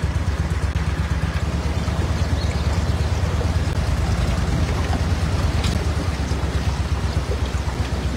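Motor of a small aluminium flat-bottomed boat running steadily as the boat travels through floodwater, with a constant rushing noise of water and air over it.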